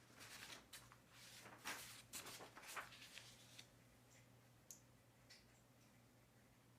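Soft rustling and scratching of paper being handled, a run of short strokes over the first few seconds, then a couple of faint clicks.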